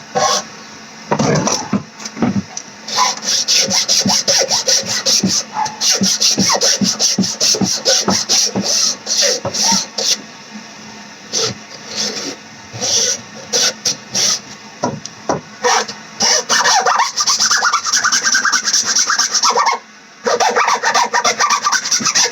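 Hacksaw cutting through a golf ball in rapid back-and-forth strokes, rasping steadily, with a brief pause near the end.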